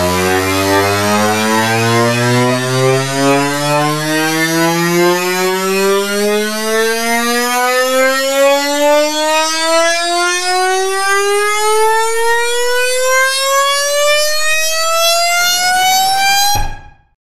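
MIDI playback of a dense run of notes climbing the keyboard so quickly that it sounds like one continuous tone rising steadily in pitch, nearly three octaves. It cuts off suddenly near the end.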